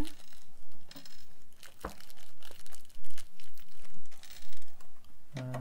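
Light rustling and small clicks as tiny metal eyelets and craft pieces are picked out and handled by hand, with one sharper click about two seconds in. Near the end a person starts humming a steady low note.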